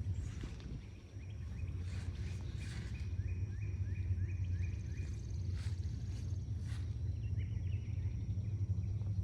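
Outdoor garden ambience: a steady low rumble of wind on the microphone, with a bird calling in a quick series of short falling chirps, about two a second, that stops around halfway through. A few brief clicks are heard later.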